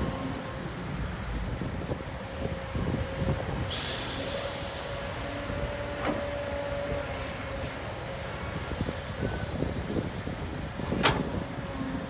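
Heavy diesel earthmoving machinery running steadily, with a burst of hissing air lasting about a second and a half about four seconds in. There is a sharp knock about six seconds in and a louder one near the end.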